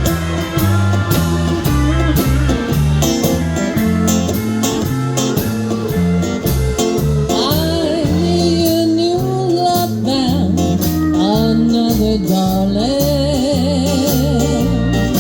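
Country band playing the opening of a song, with bass and drums keeping a steady beat and guitar. About halfway in, a wavering melody line comes in over them.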